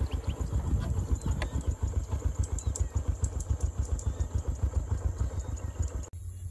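Motorcycle engine running as the bike is ridden along, a dense rapid low pulsing; the sound cuts off suddenly about six seconds in.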